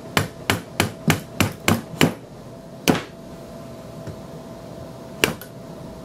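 A metal bar worked as a slide hammer, tapping an M14's operating rod guide back along the barrel to line it up: seven quick taps at about three a second, then two more single taps, spaced out, near the middle.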